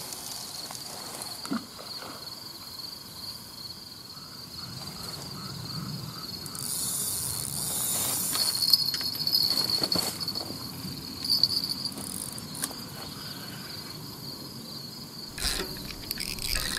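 A steady high insect chorus trilling without a break. About seven seconds in a brief rushing hiss rises over it, and a few sharp clicks follow.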